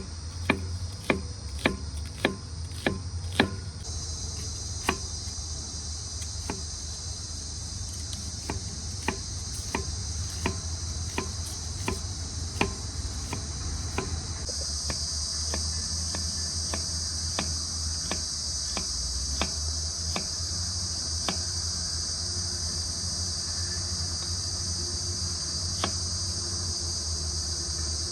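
Steady, high-pitched chorus of crickets. Over it come repeated sharp knocks, quick and regular (about two or three a second) in the first few seconds, then slower and irregular.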